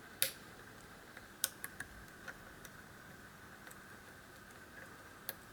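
Scattered faint, sharp clicks of a lock pick working the pin stacks of a five-pin Euro profile cylinder under tension: one crisper click about a quarter second in, a quick cluster of three about a second and a half in, and a last one near the end.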